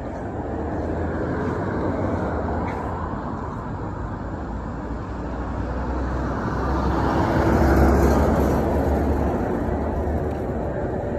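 Road traffic along a street: vehicle noise over a low rumble, swelling to its loudest about eight seconds in as a vehicle passes, then easing off.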